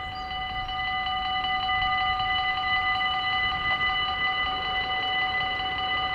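Dutch level-crossing warning bell ringing rapidly and steadily as the red lights begin flashing, signalling an approaching train. It grows louder over the first second, then holds level.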